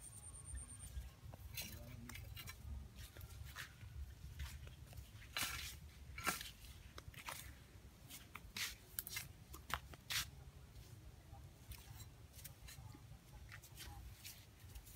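Footsteps and brush handling on dry ground: irregular crunches and snaps of dry leaves and twigs, over a steady low rumble.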